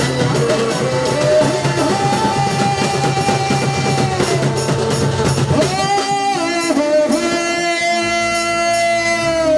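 Live Sambalpuri orchestra music: keyboards over a busy drum rhythm. About six seconds in, the drumming thins out and a held, steady chord rings on.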